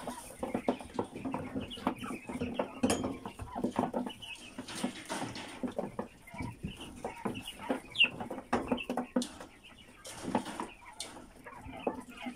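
White giant meat quail in a wire cage, calling and chirping in short notes, with light metallic clicks and rattles from the wire mesh as they move about.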